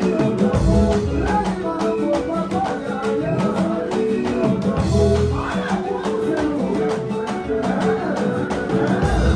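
A song playing, with guitar, drums and a singing voice over a steady beat.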